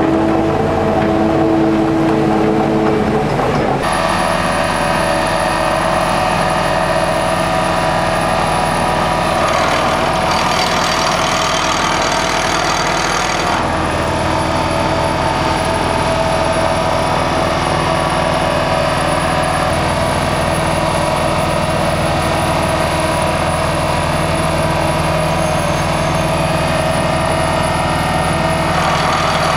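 Fundex F3500 CFA piling rig working a 1500 mm auger: its engine and hydraulic rotary head run steadily, with several steady tones over continuous machine noise. The mix changes abruptly about 4 and 14 seconds in.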